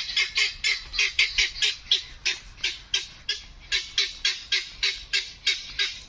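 A bird calling a fast, even series of short harsh notes, about four or five a second.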